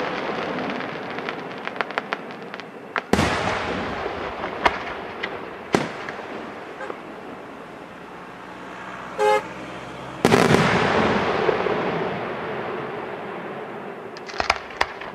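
Aerial firework shells bursting: two big booms, about 3 s and 10 s in, each fading out over several seconds, with scattered sharp crackling pops between them and a quick cluster of cracks near the end. A brief horn toot sounds about 9 s in.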